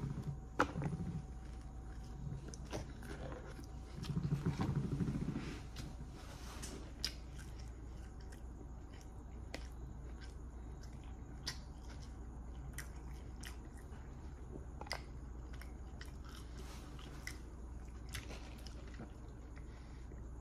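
Close-up biting into a McDonald's Chicken Big Mac and chewing the mouthful, loudest about four to five seconds in, with small wet mouth clicks through the rest of the chewing.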